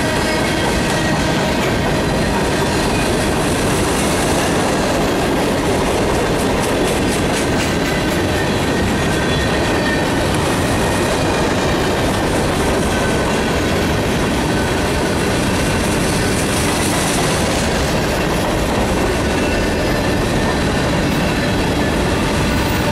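Freight cars of a mixed freight train rolling past close by: a steady rumble of steel wheels on rail with a faint high ringing tone. A run of quick clicks comes about six to eight seconds in.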